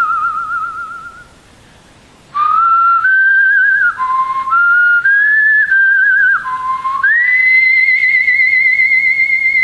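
A slow melody whistled with a steady vibrato: a held note fades out about a second in, and after a short pause a string of notes steps up and down before settling on a long high held note near the end.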